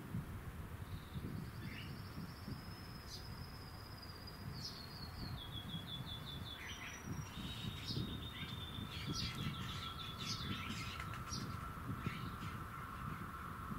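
Small birds singing in short trilled phrases of fast repeated notes over a low, uneven rumble. About two thirds of the way in, a steady high tone comes in and holds to the end.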